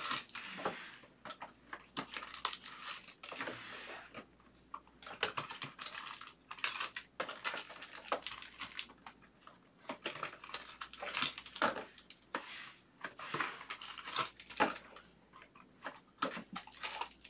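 Foil wrapper of a trading card pack crinkling and tearing as it is opened by hand, in short irregular crackles.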